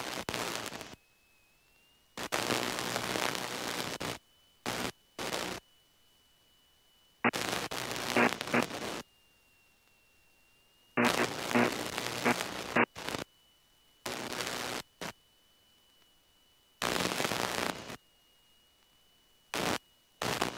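Light aircraft's radio/intercom audio feed cutting in and out: about ten bursts of rushing cockpit noise with a low drone in them, each lasting a fraction of a second to about two seconds, starting and stopping abruptly with near silence between. A faint steady high tone sits underneath.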